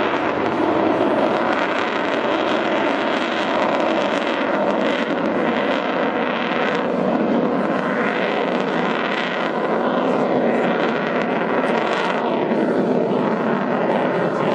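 Eurofighter Typhoon's twin EJ200 turbofan engines in afterburner, a steady, loud jet roar from the aircraft overhead. From about four seconds in, the roar takes on a sweeping, phasing whoosh as the jet moves across the sky.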